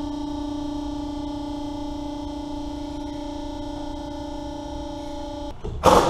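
A steady droning tone with a few overtones holds, then cuts off about five and a half seconds in. Just before the end, an air impact wrench starts loud on the front wheel's lug nuts.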